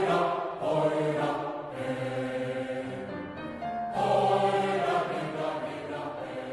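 Background music: a choir singing held notes in phrases.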